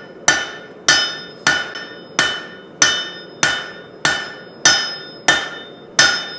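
Blacksmith's hand hammer striking a steel bar being forged toward a sword: about ten steady, evenly paced blows, a little over one and a half a second, each leaving a bright metallic ring.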